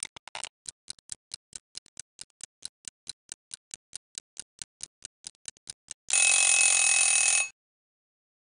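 Intro sound effect: fast, even ticking at about five ticks a second, then a bell ringing loudly for about a second and a half before it cuts off sharply.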